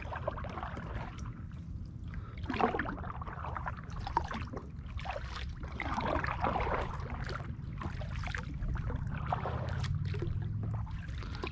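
Kayak paddle strokes in calm water: the blades dip in and drip as they lift, giving repeated splashes a few seconds apart.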